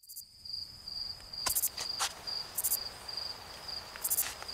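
Crickets chirping in a steady, high, pulsing trill, with short higher buzzes and a few sharp clicks, the loudest about a second and a half and two seconds in.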